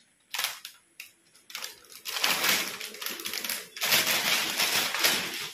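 Plastic wrap and cardboard packaging of a large gift box being handled as it is unwrapped: a few sharp crackles at first, then a dense, crisp crackling rustle from about two seconds in until near the end.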